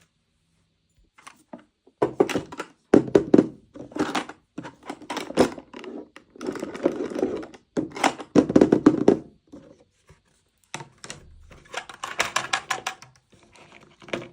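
Small plastic toy packaging and parts being handled and opened: a rapid run of taps, clicks and knocks mixed with crinkling rustles, in close-up.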